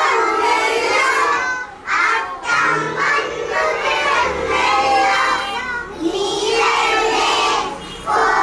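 A large group of young children calling out together, several phrases with short breaks between them.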